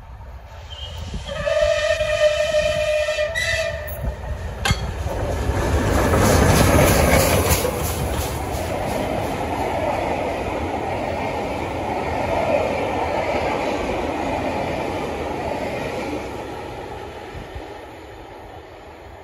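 Rebuilt Bulleid Merchant Navy class steam locomotive 35018 'British India Line' sounds its whistle in one blast of about two seconds as it approaches, then runs past at speed with a loud rush of noise. Its coaches follow with a steady rumble of wheels on the track that fades away near the end.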